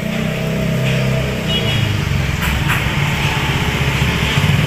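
A loud, steady low mechanical hum, with a brief high chirp about one and a half seconds in.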